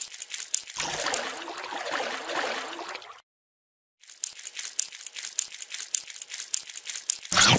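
Wet slithering foley for an eel sliding over rock and mud: rapid moist clicking and crackling, with a watery hiss between about one and three seconds in. It breaks off briefly a little past the middle, then the clicking starts again.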